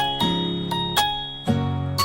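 Background music: a bright keyboard tune of plucked-sounding chime-like notes over a steady beat.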